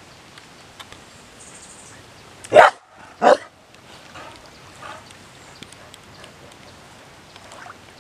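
A dog barks twice, a little under a second apart, over a faint steady patter of rain on water.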